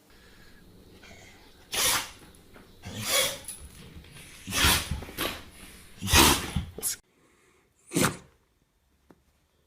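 Pets sneezing: about five short, sharp sneezes, one after another, with the last a little apart from the rest.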